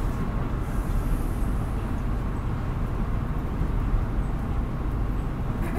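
Steady drone of a Nissan Diesel Space Runner RA city bus's diesel engine and running gear, heard from inside the passenger cabin, low and even throughout.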